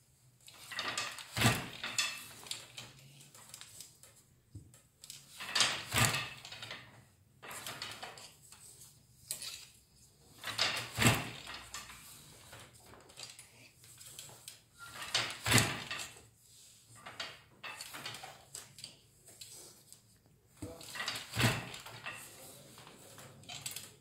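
Wooden floor loom worked by hand: the beater knocks each new weft pick into place, giving five sharp wooden knocks about every four to five seconds. Quieter wooden clatter and rustle of the stick shuttle and loom parts in between.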